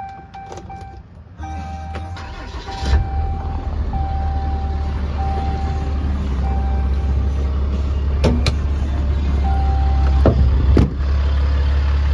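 Cummins 6.7-litre turbo-diesel of a Ram 5500 cranking and starting about a second and a half in, then idling with a steady low rumble. A dashboard warning chime repeats on and off. A few sharp clicks and knocks come near the end, and the idle gets louder after them.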